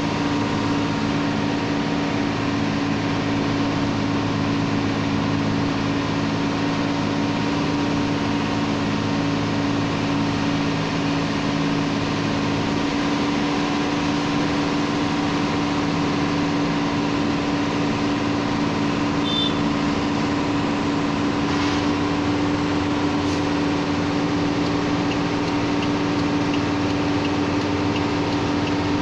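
Old truck's engine pulling steadily in first gear up a long hill, heard from inside the cab: an even engine drone that hardly changes pitch.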